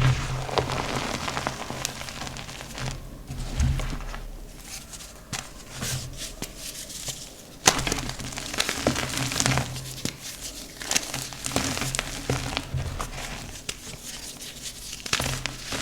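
Slabs of dyed, reformed gym chalk being crushed and crumbled by hand: irregular dry crunches and crackles, with one sharp snap about eight seconds in.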